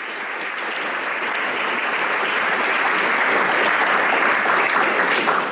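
Audience applauding, the clapping building steadily louder.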